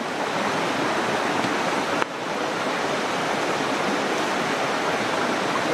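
Steady rush of river water, with a brief dip about two seconds in.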